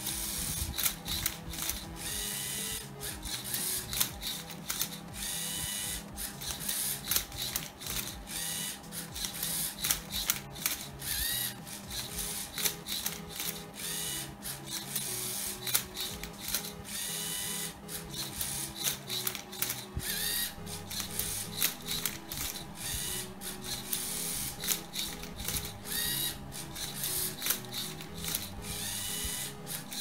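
Lego EV3 MindCuber robot turning and flipping a Rubik's cube: its servo motors whir in short rising whines every couple of seconds, with a steady run of plastic clicks and clacks from the gears, turntable and flipper arm. Music plays underneath.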